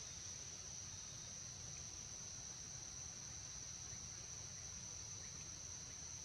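Steady, unbroken high-pitched insect chorus, with a faint low rumble underneath.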